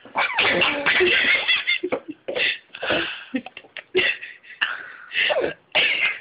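A woman's playful mock sneezes and young children's laughter, in several short bursts one after another.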